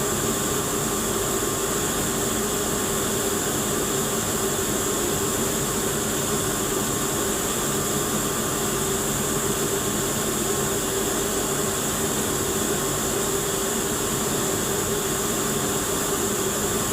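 Steady hiss and hum of a TIG welding arc, running without a break.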